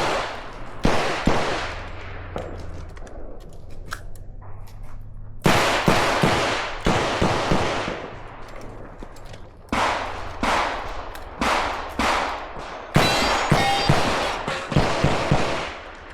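Revolver shots fired in several quick strings of shots, with pauses of a couple of seconds between the strings; each shot has a short echo.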